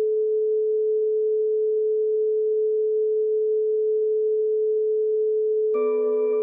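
A steady, pure, singing-bowl-like tone of meditation music, held at one pitch. Near the end a new ringing tone strikes in with many overtones layered over it.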